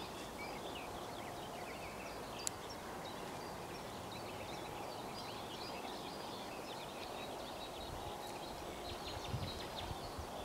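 Birds chirping and singing over a steady outdoor background hiss, with one sharp click about two and a half seconds in and a few low thumps near the end.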